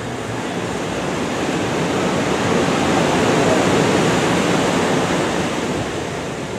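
Ocean surf breaking and washing up a sandy beach: a wash of noise that swells to a peak about halfway through and then eases off.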